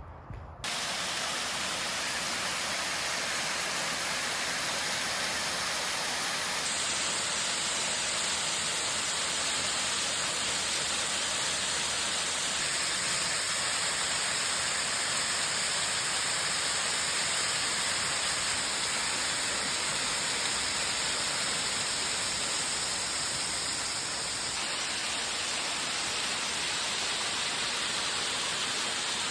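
Waterfall: a steady rush of falling water, a constant hiss heavy in the treble that starts abruptly about half a second in and shifts slightly in tone twice.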